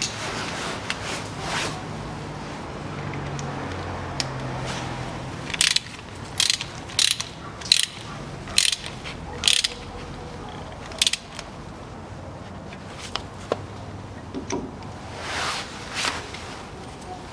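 Socket ratchet clicking through a run of short strokes as the filler plug is screwed back into the front differential, a little under two strokes a second between about six and eleven seconds in.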